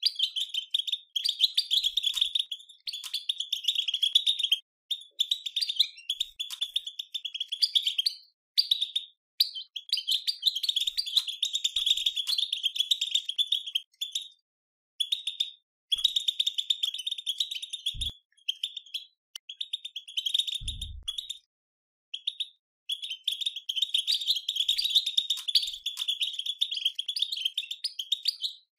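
European goldfinch twittering in fast chattering runs, the 'batbata' twitter used to rouse caged goldfinches to sing, coming in bursts broken by short pauses. Two dull low thumps fall past the middle.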